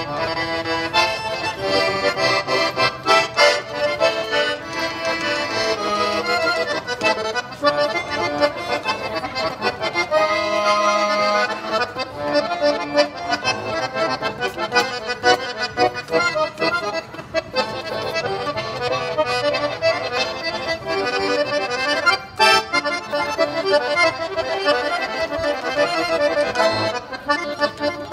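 Russian garmon, a small button accordion, playing a traditional tune.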